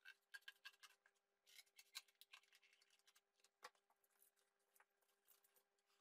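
Scissors cutting corrugated cardboard: a quick run of short snips, then a rougher, longer cut, and one sharper click about halfway through, with lighter scrapes and clicks of cardboard after it.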